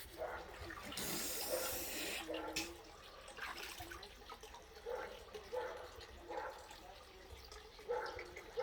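Water splashing and sloshing in a small pool, with a louder burst of splashing about a second in that lasts a little over a second.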